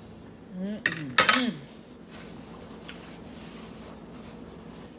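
Metal fork clinking sharply against a dish two or three times about a second in, over a brief wordless vocal sound from the eater. Then faint rustling of a paper napkin as she wipes her hands.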